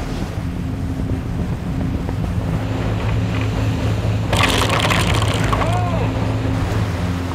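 Game-fishing boat's engine drone running steadily under the rush of the wake. About four seconds in, a louder rush of spray rises for about a second, followed by a few short squeaks that rise and fall in pitch.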